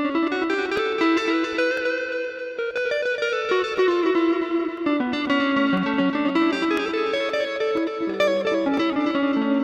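Electric guitar played through a Zoom G1X ON multi-effects pedal on a chicha-style patch with delay, picking a single-note melody.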